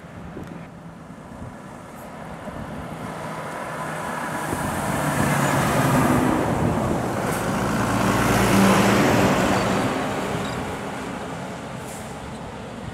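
Diesel freight truck driving past: engine and tyre noise grow louder over several seconds, are loudest in the middle, then fade away.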